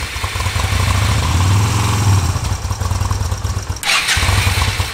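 Yamaha Virago V-twin motorcycle engine running unevenly on carb cleaner sprayed into the intake, because no fuel is reaching the carburettor. The running falters about four seconds in, with a hiss over it near the end.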